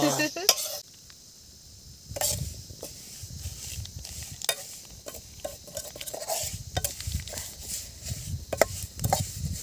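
Metal spatula stirring and scraping vermicelli around a steel kadai as it roasts until brown, with irregular scrapes and clicks against the pan starting about two seconds in.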